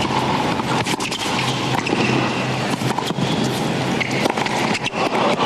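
Tennis rally: racquets striking the ball back and forth, sharp pops about once a second, over a steady hum of stadium background noise.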